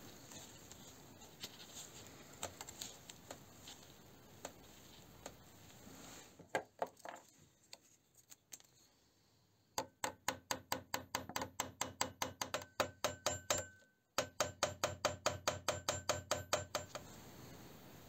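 Small hammer tapping a pin in a pocket knife's frame against a metal block to peen it over: two runs of quick, evenly spaced metallic taps with a ringing tone, about five a second, with a short break between them. Before the taps, faint scattered clicks of the knife's metal parts being handled.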